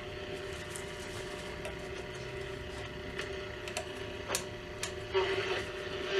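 Hallicrafters S-120 shortwave receiver's speaker giving a steady low whistle over a hiss of static, with several sharp crackles scattered through it. The owner puts the static down to fluorescent lights in the room.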